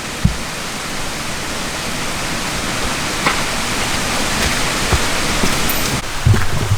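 Steady rushing of running water, a loud even hiss that swells slightly, with a few low thumps near the end.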